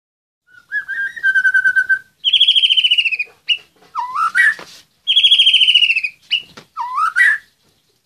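White-rumped shama (murai batu) singing in its cage: a rapid trill, then a loud fast-pulsed phrase falling slightly in pitch followed by short rising notes, with the same phrase and rising notes repeated.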